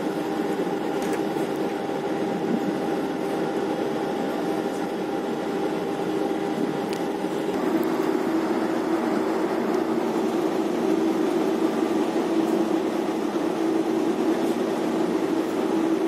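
Steady hum of a research ship's deck machinery, with several steady tones. About halfway through, a higher tone drops out and a lower hum grows louder, as the winch lowers the box corer on its cable.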